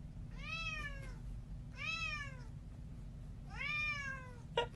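A cat meowing three times, about a second and a half apart, each meow a drawn-out call that rises and then falls in pitch. A short click comes near the end.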